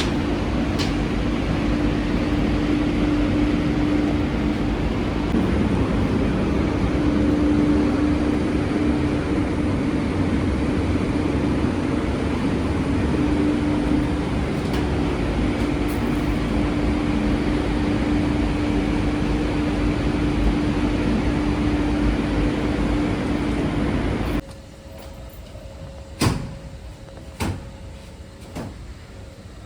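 A machine running steadily with a constant hum, cutting off abruptly about 24 seconds in; a few sharp clicks or knocks follow in the quieter background.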